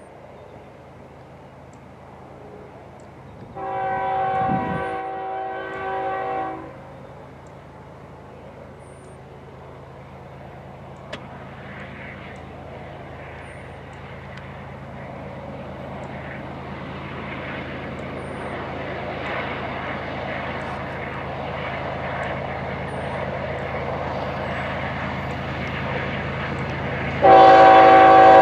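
A freight train led by a GE ES44AH diesel locomotive approaches, and its air horn sounds two blasts back to back a few seconds in. The diesel engine and wheel rumble then grow steadily louder as it nears. A much louder horn blast starts about a second before the end.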